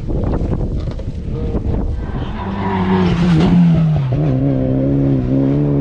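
Racing car engine passing at speed on a hill climb: a rough crackling note first, then a strong engine tone that peaks about halfway through and drops in pitch as it goes by, holding lower to the end.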